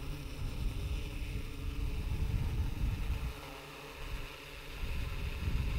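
DJI Inspire 1 quadcopter's four motors and propellers running with a steady whine as it lifts off and climbs into a hover, over a low rumble that eases for about a second midway.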